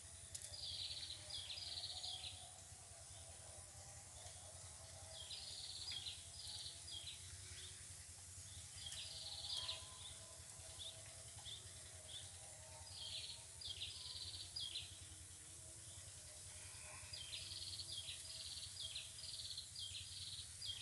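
Outdoor ambience with bird calls: bursts of three to five quick, high chirps, repeated every three to four seconds over faint steady background noise.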